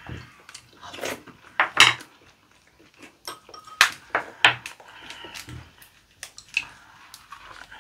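Irregular clicks and taps of a wooden spoon and utensils against an earthenware pot and bowls at the table.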